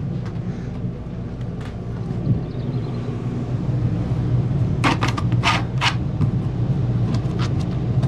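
RV rooftop air conditioner running on cool, with fan and compressor going, heard from inside the camper: a steady hum with air flow. A handful of sharp clicks about five to six seconds in.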